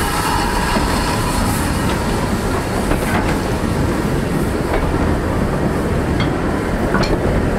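Train of vintage passenger coaches rolling past behind a steam tank engine, with a steady rumble and a few sharp clicks as the wheels cross rail joints.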